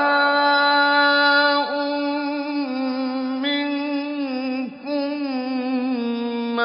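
A man's voice reciting the Quran in melodic tajweed chant, holding long drawn-out vowels with small turns in pitch. The held note breaks briefly about a second and a half in and again near the end.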